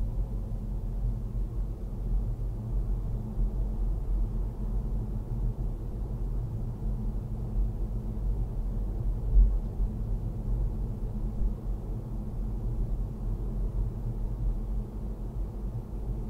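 Car cabin noise while driving: the engine and tyres make a steady low rumble, with one brief louder thud about nine seconds in.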